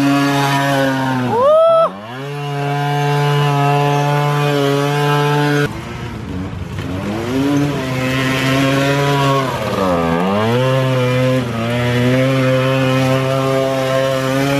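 Small moped scooter engine buzzing steadily at high revs as it is ridden off-road. About a second and a half in it revs up sharply and drops away as the throttle shuts; around ten seconds in the revs sag and climb back up.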